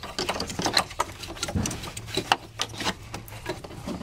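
Hands working unplugged electrical connectors and wiring in an engine bay: a run of irregular light clicks and rattles as they are tucked out of the way.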